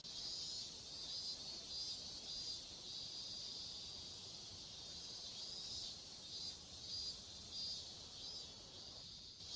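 Insects, crickets, chirping in a faint, steady high-pitched chorus that pulses about twice a second.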